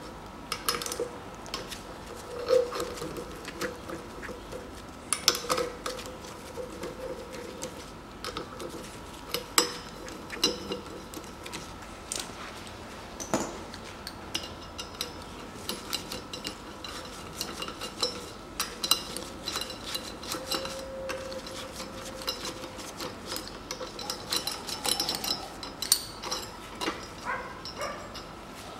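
Hand tool working the cylinder-head bolts of an air compressor: scattered light metallic clicks, clinks and scrapes of steel tool on bolt heads and the metal head.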